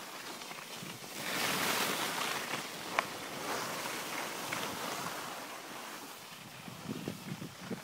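Rushing noise of skis sliding over snow, with wind on the microphone, swelling about a second in and easing off later. There is a single sharp click around three seconds in and a few soft knocks near the end.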